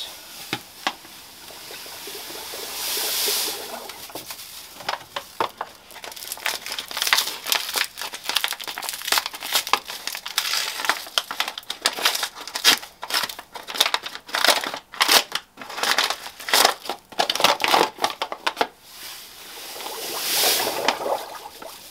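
Paper bags of granulated sugar crinkling and being torn open, with many sharp crackles through the middle. Sugar is poured from the bags into a stockpot in a hissing stream, once about three seconds in and again near the end.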